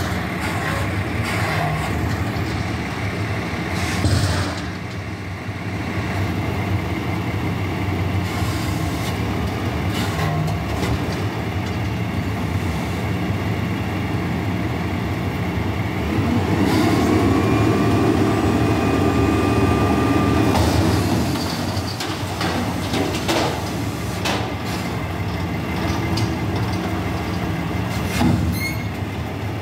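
Heil Half Pack Odyssey front-loader garbage truck running, its hydraulics working the forks to pick up a steel dumpster and raise it overhead. About halfway through the engine revs up for several seconds with a rising, then steady whine as the lift is powered. Scattered metal clanks and knocks come from the dumpster and arms.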